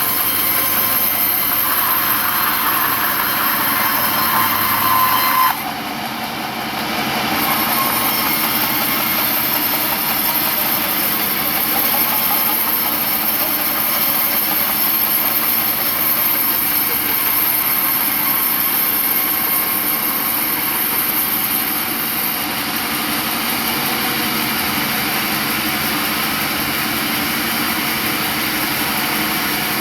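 Sawmill machinery running steadily with a loud mechanical drone. A high whine stops suddenly about five and a half seconds in, then the steady running noise continues.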